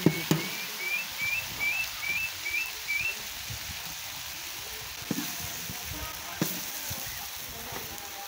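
Meat and nopales sizzling on a comal, a steady hiss throughout. Over it a bird calls a run of about seven short rising chirps in the first three seconds, and there are a few sharp knocks later on.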